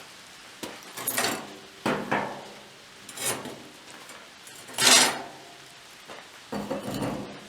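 A series of about six hard knocks and clatters, like solid objects being handled, bumped and set down, the loudest about five seconds in.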